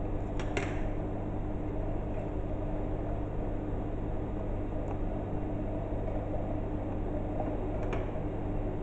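A steady low hum of a fan or motor, with a few faint clicks and snips of scissors cutting and handling cotton fabric: a couple about half a second in and again near the end.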